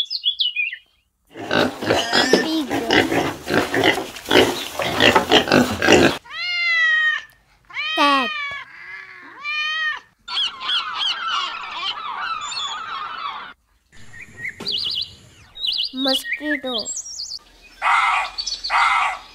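A run of short animal-sound clips, one after another. The clearest is a series of house-cat meows, each rising then falling, about six to ten seconds in.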